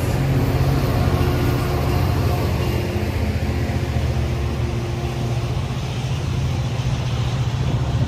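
Metra commuter train's diesel locomotive running close by, a steady low engine rumble with the noise of the train over it.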